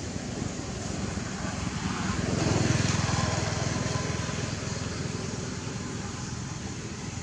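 A motor vehicle's engine passing by: a fast pulsing rumble that grows louder, peaks about two and a half seconds in, then fades, over steady background noise.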